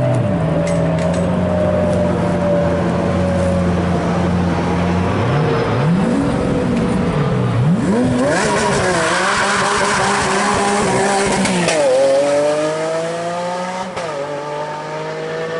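Lamborghini Aventador's V12 running at low revs as it rolls out, then blipped up and down before revving hard under full acceleration. The pitch drops and climbs again at two upshifts, and the sound fades a little as the car pulls away near the end.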